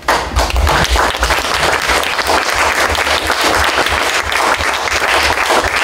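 Audience applause, many hands clapping, breaking out all at once and keeping up at an even level.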